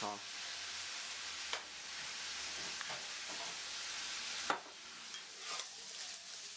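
Kung pao chicken sizzling in a hot pan as it is stir-fried with soy sauce, a steady hiss with a few sharp spatula knocks on the pan; the sizzle eases off a little after a knock about two-thirds of the way through.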